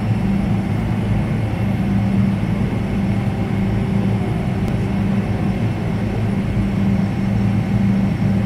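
Boeing 777-300 jet engines running steadily at low power, heard from inside the cabin over the wing: an even drone with a low hum and no change in pitch while the airliner rolls slowly on the ground.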